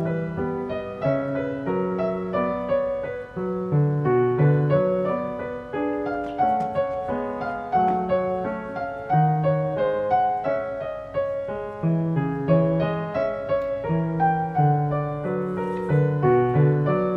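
Background piano music: a gentle melody of evenly paced single notes over lower chords.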